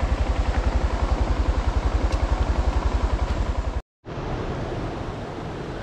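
Honda Monkey 125's single-cylinder four-stroke engine ticking over at a slow, even beat, which cuts off abruptly just under four seconds in. After a short gap, the steady rush of a river in flood takes over.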